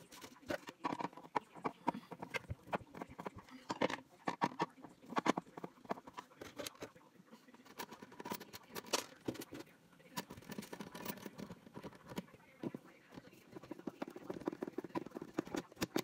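Hand screwdriver driving screws into a metal cabinet-door hinge, with irregular small clicks, taps and scrapes of metal against metal and board as the door is handled.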